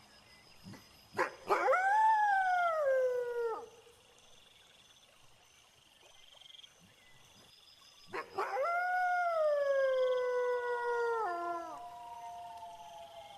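Wolf howling twice, each long howl rising quickly and then sliding slowly down in pitch before breaking off, with a sharp click just before each. Faint steady chirping of crickets runs underneath.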